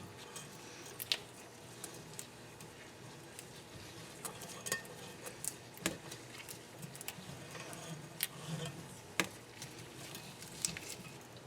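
Small metal parts and hand tools clinking and tapping irregularly, with a handful of louder sharp clicks, as parts are handled while a cylinder head is put together.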